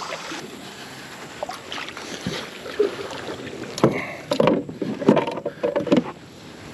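Knocks and clunks of gear being handled on a Native Titan X 12.5 fishing kayak, with a cluster of sharp knocks from about four to six seconds in.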